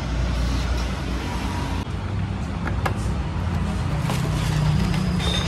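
Steady low rumble of road traffic, with a few light clicks and taps.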